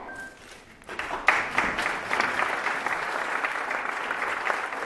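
Audience applauding, starting about a second in: a small crowd of individual hand claps.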